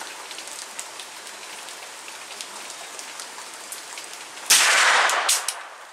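A single suppressed shot from a 9mm CZ Scorpion carbine fitted with a Rugged Obsidian 45 suppressor in its long configuration, with the extension added, about four and a half seconds in. The shot is still loud. It is fired with 115-grain supersonic ammunition, so the suppressor takes out the boom but leaves the crack. Steady rain hisses throughout.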